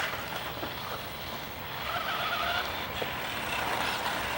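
Remote-control toy cars running, their small electric motors whining over a steady hum, with a sharp click right at the start.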